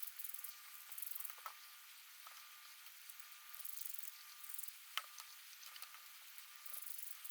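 Screws being turned into freshly drilled holes to cut threads in them: faint scratchy creaking in spells, with a few sharp clicks, the loudest about five seconds in.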